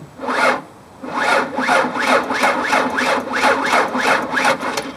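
Car starter cranking the engine slowly, about three turns a second, after a brief first attempt, without the engine catching. The sluggish cranking is the sound of a low battery.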